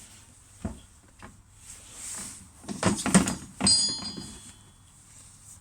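Metal parts of a motorcycle front fork being handled: a few light knocks, a cluster of louder knocks about three seconds in, then a clink that rings briefly with high tones.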